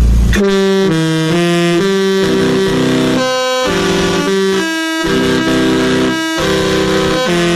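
A loud melody of sustained notes sounding two or three at once, stepping quickly from note to note. It starts suddenly after a brief gap.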